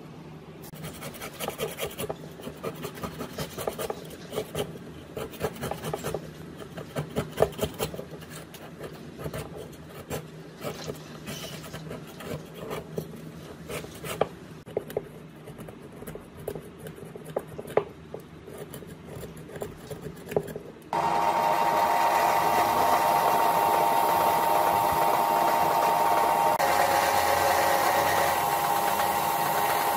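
A blade scraping old foam surround and glue off the metal rim of a speaker basket, in many short irregular strokes. About 21 s in, a power drill with an abrasive wheel starts suddenly and runs steadily against the basket rim, grinding it clean.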